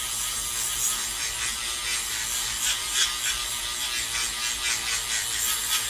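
Wire brush scrubbing over a stripped diecast metal car body shell in quick repeated strokes, a scratchy rasping sound, to clean stubborn muck off the bare metal.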